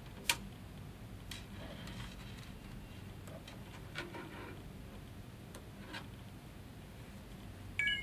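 Clicks and light knocks of Lightning cables and connectors being handled and plugged in, the sharpest just after the start. Near the end a short chime from the iPhone 5 as it connects and starts charging.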